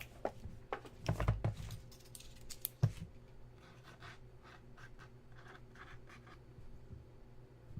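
Hands handling trading cards and their packaging: a few clicks and a dull bump in the first three seconds, a sharp click just before the three-second mark, then soft scratching and rustling.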